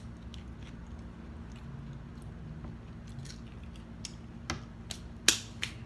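Close-up chewing of the last french fries with ketchup, with a few sharp mouth smacks and clicks in the second half, the loudest about five seconds in, over a steady low hum.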